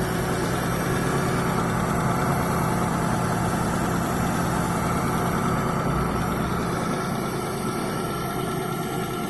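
Mitsubishi Galant V6 engine running steadily at idle with freshly fitted connecting-rod and main crankshaft bearings.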